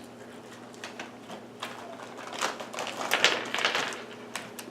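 Crinkling and rustling of plastic ration packaging being handled, with a few light taps. The crinkling bunches up in the second half and is loudest a little past the middle.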